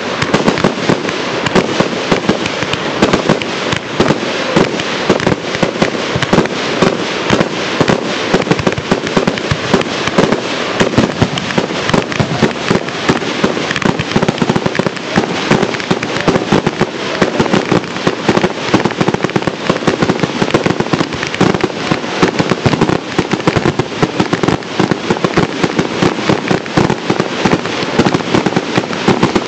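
Professional aerial fireworks display: a dense, unbroken barrage of shell bursts and reports, many bangs a second with no let-up.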